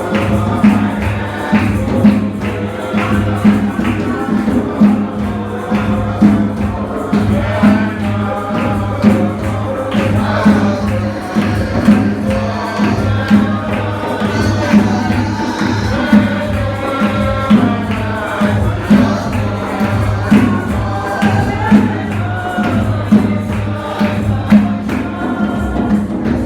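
Gospel music with a tambourine and a steady beat, voices singing together over a steady low drone.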